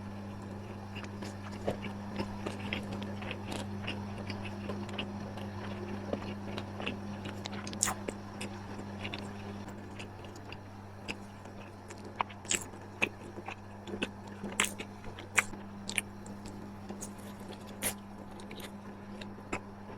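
Close-miked eating: a person biting and chewing crunchy food, with sharp crackles that get louder in the second half, over a steady low hum.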